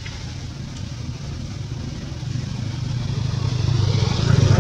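A motor vehicle engine running off-screen, a low steady hum that grows steadily louder through the second half as it draws nearer.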